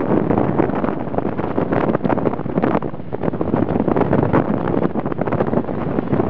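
Loud wind noise buffeting the microphone: a steady rough rumble that flutters rapidly and irregularly.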